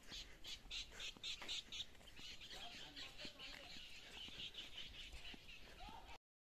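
Faint birdsong: short chirps repeated about four or five times a second, giving way to denser twittering about two seconds in. The sound cuts off suddenly near the end.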